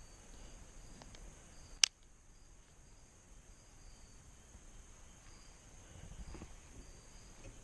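Faint, steady insect chirping in short repeated pulses, with a single sharp click about two seconds in.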